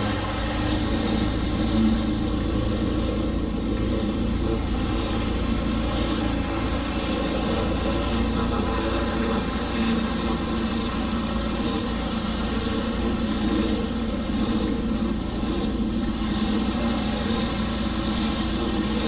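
An engine running steadily at one constant speed, with no change in pitch.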